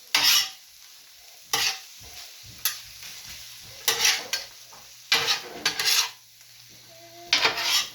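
A beef, rice and sauce filling sizzling on a steel flat-top griddle, with about six short scraping strokes as a utensil stirs and works it together on the hot steel.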